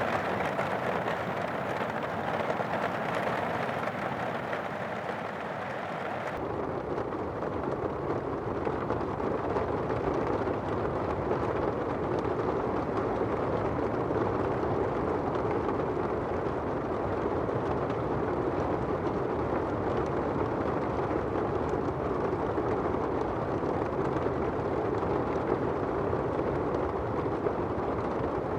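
Steady rain falling, an even hiss. About six seconds in the sound changes abruptly to a deeper, duller rush.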